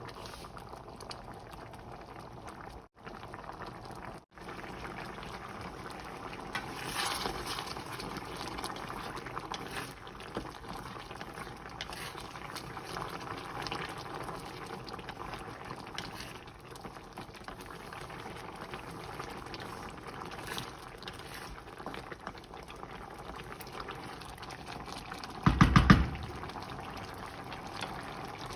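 Coconut-milk curry sauce simmering in a pot with a steady bubbling. Near the end comes a brief loud knock or clatter.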